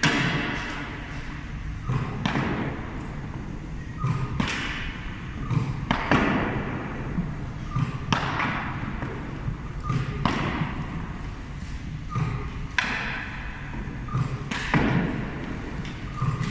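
Tennis balls shot at a hockey goalie from a tennis-ball launcher, about every two seconds: nine sharp smacks, each echoing in the large gym as the ball strikes the goalie's gear and bounces on the wooden floor.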